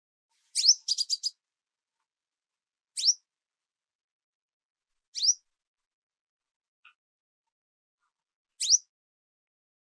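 A small bird calling: short, high chirps that sweep upward, repeated every two to three seconds, with a quick run of four notes about a second in.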